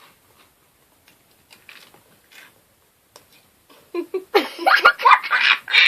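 Near quiet with faint small clicks for a few seconds, then from about four seconds in loud children's laughter and squealing in bursts.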